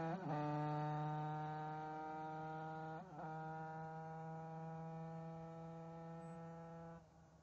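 Derbi DRD moped's two-stroke engine with an Airsal 80cc cylinder kit, running hard and steady as the bike rides away. Its note breaks briefly twice, about the start and about three seconds in, as at gear changes. It grows fainter and drops off near the end.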